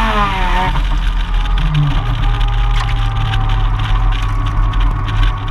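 Mazda RX-7 FD3S's single-turbo 13B two-rotor engine, heard from outside the car. The revs fall off in the first moment, then it runs low and steady with an irregular crackle throughout.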